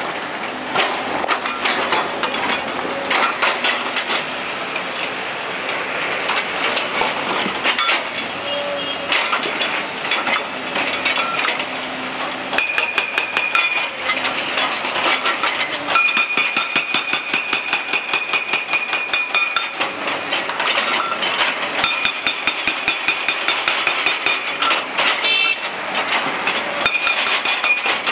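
Hydraulic rock breaker on an excavator hammering rock in rapid repeated blows, about four a second, with a high metallic ringing tone. The hammering comes in spells with short breaks between them.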